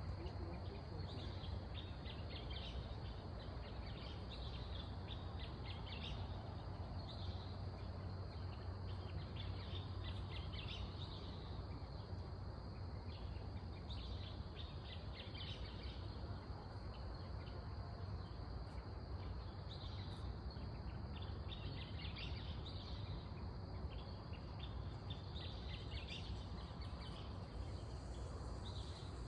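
Outdoor night ambience: a steady low hum with short bursts of high, rapid chirping calls from small night creatures repeating every couple of seconds.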